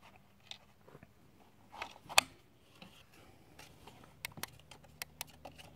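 A few sharp clicks and clacks from handling the Kral Puncher Armour PCP air rifle's action. The sharpest comes about two seconds in, followed by several lighter ticks near the end.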